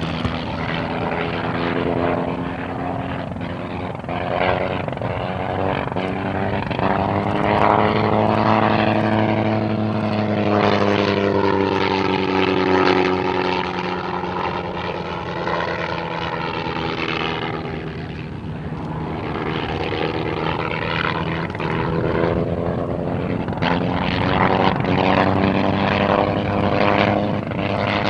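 A Sopwith Camel's original 160 hp Gnome rotary engine drives the biplane's propeller in flight. Its note holds steady, then rises and falls in pitch over the middle stretch as the aircraft manoeuvres and passes, and settles steady again near the end.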